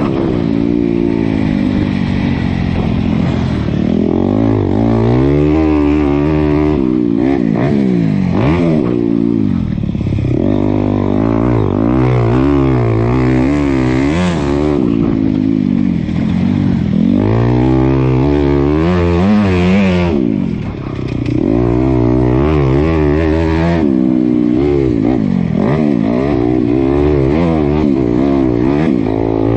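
Honda CRF250 dirt bike's single-cylinder four-stroke engine ridden hard, its pitch climbing and falling again and again as the throttle opens and closes. There is a brief lull in level about two-thirds of the way through.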